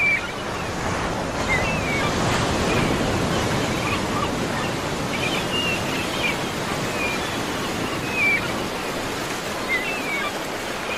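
Steady sea surf and wind noise, with short high chirps now and then.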